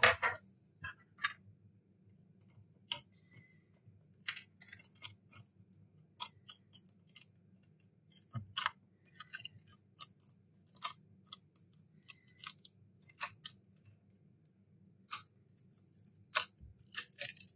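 Razor blade and metal pry tool chipping the cracked, laser-loosened rear glass off an iPhone X: irregular sharp clicks and crackles as glass pieces snap and scrape away, over a low steady hum.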